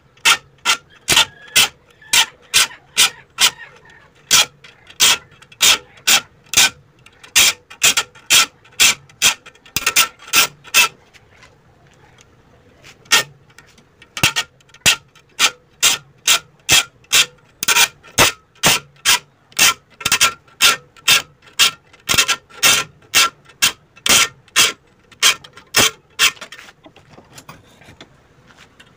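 Rhythmic rubbing strokes, two to three a second, breaking off for about two seconds midway and again briefly near the end.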